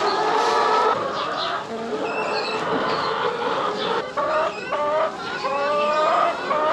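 A flock of brown laying hens clucking in a barn, many calls overlapping, several of them drawn out.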